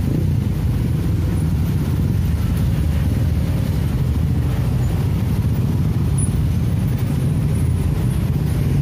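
A crowd of small motorcycle and scooter engines running together as heavy two-wheeler traffic rolls past, a steady low drone with no single event standing out.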